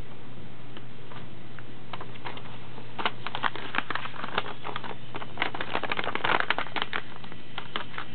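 Sheet of white paper being handled and folded: crisp rustles and crackles, thickest about six seconds in, over a steady low hum.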